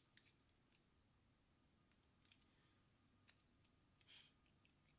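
Faint, scattered clicks of a half razor blade being handled and slid into a barber's straight razor, with a brief soft rustle about four seconds in.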